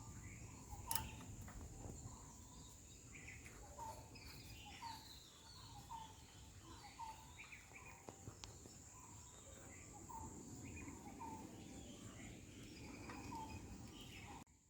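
Faint outdoor background: a bird repeating a short chirp roughly every half second over a steady high insect drone, with one sharp click about a second in.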